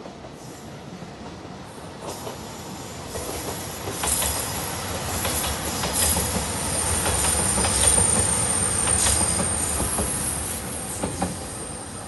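JR Shikoku 2700 series diesel express train passing close by. Its rumble and wheel clatter build up, are loudest in the middle, and fade towards the end. A high, steady squeal runs through the second half.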